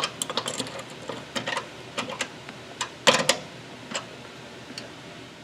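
Nuts and washers being run down by hand onto steel carriage bolts: a string of light metallic clicks and taps, with a louder clatter about three seconds in.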